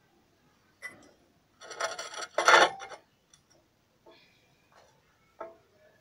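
Steel drive shaft handled on a concrete floor: a click, then scraping and rasping of metal on concrete, the loudest about two and a half seconds in, followed by a few lighter knocks.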